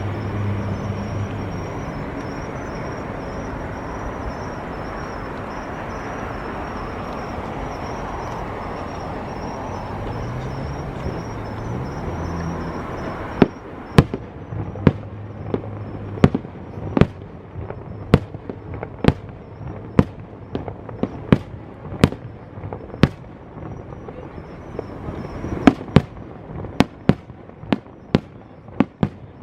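Fireworks display: a dense, continuous rumble for about the first half, then shells bursting in sharp separate bangs, roughly one a second, to the end.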